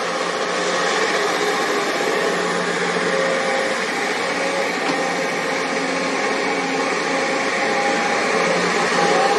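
Excavator's diesel engine running steadily under working load, with faint whining tones that shift a little in pitch as it digs soil.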